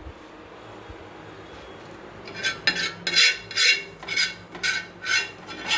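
Metal spoon scraping and clinking against a bowl while scooping sauce, a run of quick strokes about three a second that starts about two seconds in.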